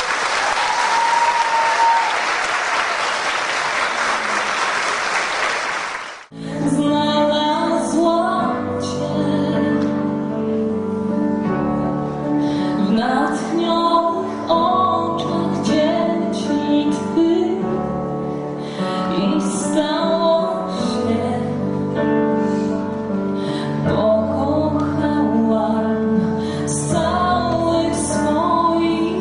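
Audience applauding, cut off abruptly about six seconds in by a live song: a woman singing with a band of keyboard and percussion.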